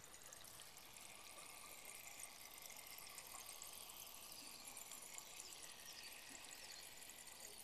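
Faint fizzing with many tiny crackles: residual butane bubbling out of freshly extracted butane hash oil in a glass dish.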